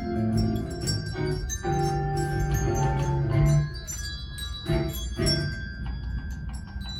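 Handbells playing a tune: bells struck one after another, several notes sounding together and each ringing on as it fades.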